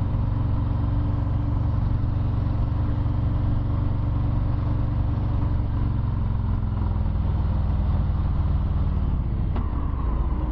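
Harley-Davidson Low Rider S V-twin engine running steadily under way, picked up by a helmet microphone along with wind and road noise. Past the middle its pitch steps a little lower as the bike eases off.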